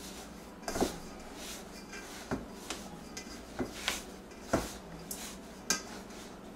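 Flour and water being mixed by hand into dough in a stainless steel bowl: irregular knocks and clinks as the bowl and hand strike against each other, about seven over a few seconds.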